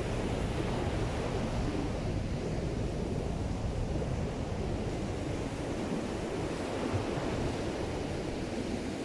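Ocean surf breaking and rushing onto the beach, with strong wind rumbling on the microphone; a steady, unbroken wash of noise.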